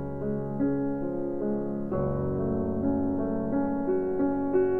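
Background piano music, a calm run of single notes and chords at an even level.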